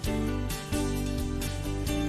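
Background music: guitar-led instrumental track with steady bass notes.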